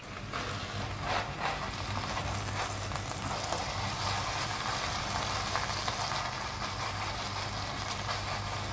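Vegetarian mince frying in a hot pot, a steady sizzle with a few spatula scrapes and taps in the first few seconds, over a low steady hum.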